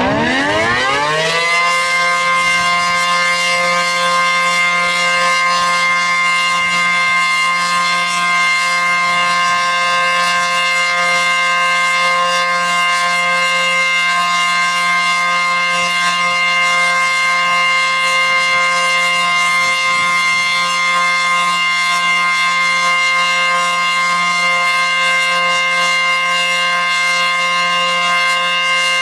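ACA P-15 outdoor tornado siren sounding the Alert signal: it winds up quickly in pitch over the first second or two, then holds a loud, steady tone.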